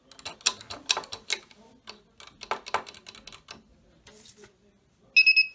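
Quick, irregular clicking as buttons are pressed on a homemade Arduino door-lock keypad, then a short, loud, high beep from its piezo buzzer near the end.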